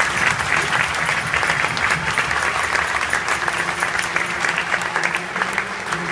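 A large stadium crowd applauding with many hands clapping at once, slowly easing off; a low steady hum comes in about halfway through.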